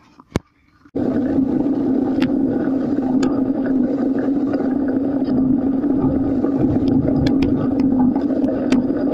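Steady riding noise from a road bike moving along a rough track: wind on the microphone and tyre roar, with scattered clicks and rattles. It starts abruptly about a second in, after a moment of near silence.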